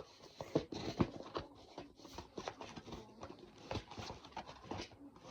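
Irregular light clicks, taps and scrapes of a plastic toy and its packaging being handled as the toy is worked free of its twist ties.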